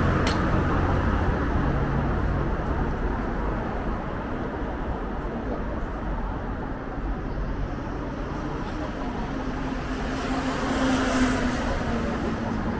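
City road traffic noise: a steady wash of passing vehicles and tyre noise, with a brief click near the start and one vehicle's hiss swelling past near the end.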